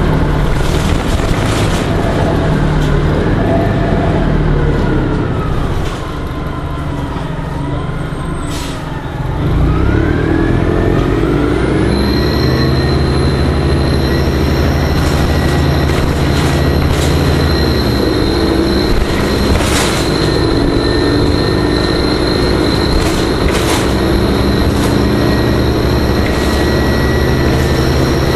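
Orion V (05.501) CNG transit bus in motion. Its engine and drivetrain whine glides down and dips in volume as the bus eases off, then it pulls away loudly with the whine rising again. A high steady whine joins in about twelve seconds in, with rattles and clicks throughout.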